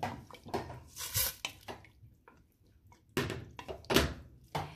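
A spoon stirring chopped vegetables in water in a cooking pot: water sloshing and splashing in short bursts, with a quieter pause midway.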